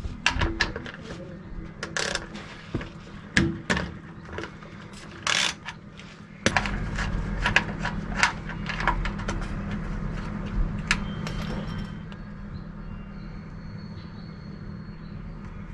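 A hand tool working the rear differential's fill plug on a Ford Ranger: a scattered run of sharp metallic clicks and clinks as the plug is undone. About six and a half seconds in, a steady low rumble starts and carries on.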